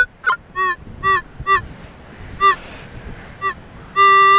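Minelab CTX 3030 metal detector giving short pitched target beeps as the coil is swept back and forth over a signal, about six honk-like tones that bend up and fall away, unevenly spaced. Near the end a steady held tone starts and carries on.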